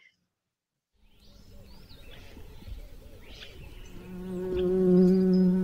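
A bee buzzing: one steady hum that fades in about four seconds in and grows loud near the end. Before it, after a second of silence, faint background with a few short chirps.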